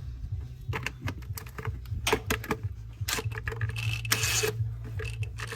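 Irregular clicking, knocking and rattling of hands and tools working around plastic engine covers and parts in an engine bay, with a short scraping rub about four seconds in, over a steady low hum.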